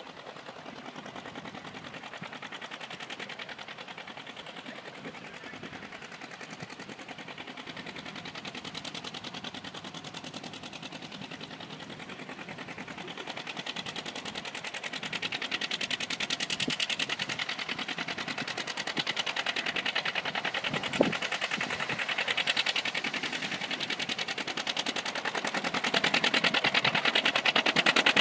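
Three John Deere 830 two-cylinder diesel tractors hitched together, working hard pulling a 45-foot field cultivator: a rapid, even popping exhaust beat that grows steadily louder as the rig comes closer. One sharp click sounds late on.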